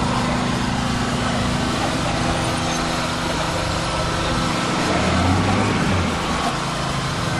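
Small gasoline engine of a hydraulic rescue tool's power unit (Jaws of Life) running steadily. It gets briefly louder and lower about five seconds in while the hydraulic ram is working.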